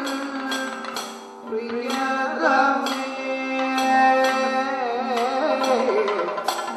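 Kathakali accompaniment music: a singer holding a wavering melodic line in the Carnatic style, with sharp percussion strokes at irregular intervals.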